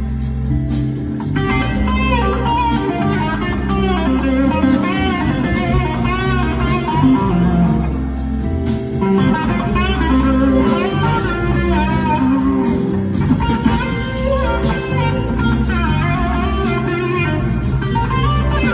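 Live blues-rock band playing an instrumental passage: an electric guitar lead with gliding, bending notes over bass and drums, without vocals.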